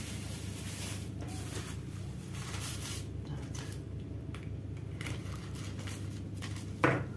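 Soft rustling and small clicks of bread and smoked mackerel being handled and readied for a bite. A brief louder sound comes near the end.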